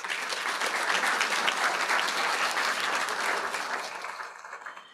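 Audience applauding: many hands clapping together, starting suddenly and fading out near the end.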